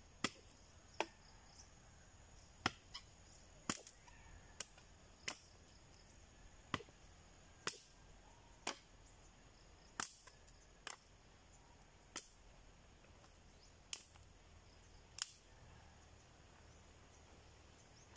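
Sharp chopping strikes of a blade into thin sticks of dry wood, about one blow a second at uneven spacing, each a short crack.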